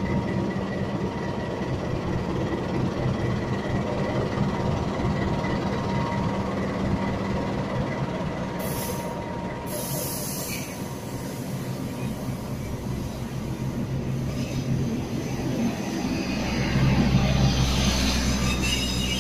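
CC 206 diesel-electric locomotive running as it rolls slowly past close by, its engine a steady drone with a held hum. About halfway through there are brief high-pitched noises, and near the end a louder low rumble comes in as the train's generator car passes.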